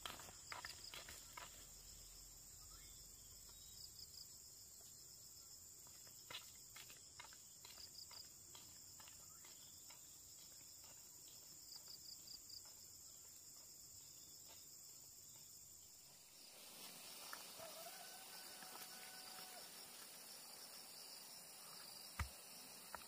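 Faint rural ambience of insects chirring steadily at a high pitch, with a few soft clicks and small repeated chirps. The background changes abruptly about sixteen seconds in, and a single sharp click comes near the end.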